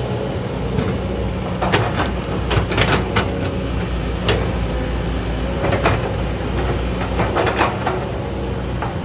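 Backhoe excavator's diesel engine running steadily while it digs, with irregular sharp metallic clanks and knocks from the working machine, several of them in quick clusters.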